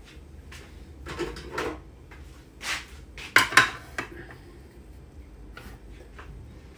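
Kitchenware handling: a small ceramic plate set down and moved on a stone countertop, giving a few short knocks and clinks. The loudest is a close pair about three and a half seconds in.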